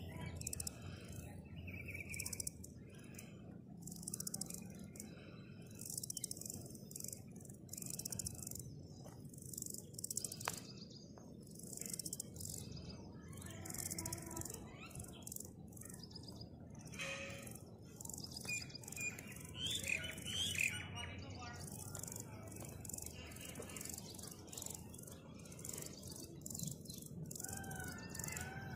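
Grasshopper stridulating in short, high-pitched buzzing bursts, about one a second. Birds chirp about two-thirds of the way through and near the end.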